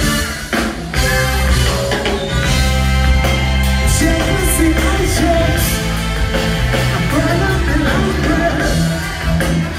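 Reggae band playing live, heard from the crowd: a steady, repeating bass line and drums, with a lead voice singing over them from about four seconds in.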